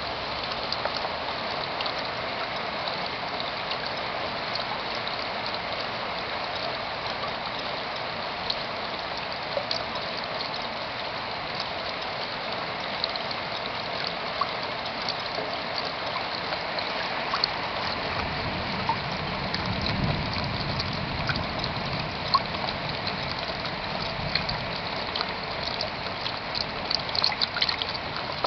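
Rain falling steadily on plastic sheeting, with water running and trickling; sharper drop ticks grow more frequent near the end, and a low rumble joins for a few seconds past the middle.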